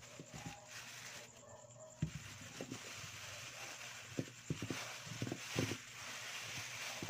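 Soft knocks of tomatoes, onions and ginger being set down on a plastic-covered table, a few scattered bumps over a steady faint hiss.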